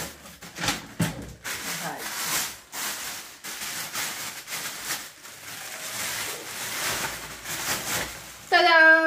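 Wrapping rustling and crinkling in quick irregular bursts as a crystal glass candlestick is unwrapped by hand, ending near the end with a sung 'ta-dam'.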